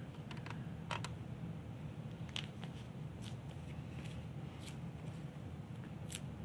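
Light handling noise of AED training pads being pressed onto a plastic CPR manikin: a few scattered small clicks over a steady low room hum.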